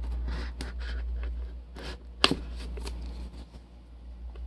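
Plastic shrink wrap on a trading-card hobby box crinkling and scraping as it is cut and pulled away, with a sharp click about two seconds in. A low steady hum sits underneath.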